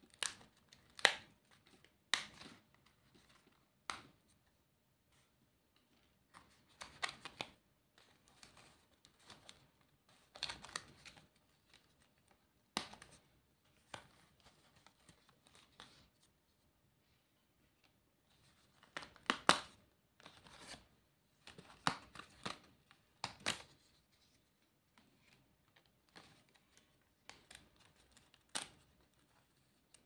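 Sticker pieces being peeled off a stiff paper sticker sheet, and the sheet and paper plate being handled: separate bursts of paper rustling and crackling with sharp little clicks, every couple of seconds, with short quiet gaps between.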